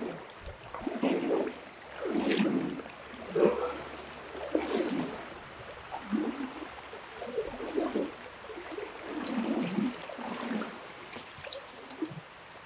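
River water sloshing and gurgling close to the microphone, in uneven surges about once a second.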